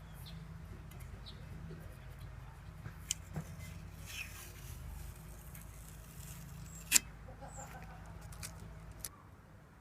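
Masking tape being peeled off a freshly spray-painted car wheel rim: scattered crackles and short tearing sounds, with one sharp click about seven seconds in. A steady low hum runs underneath until about nine seconds in.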